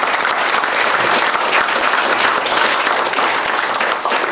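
A group of people applauding, with steady, dense clapping.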